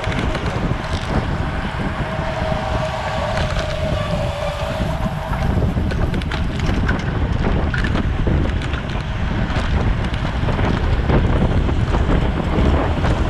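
Wind buffeting a bicycle-mounted action camera's microphone as the bike races at speed: a steady low rumble with scattered light clicks.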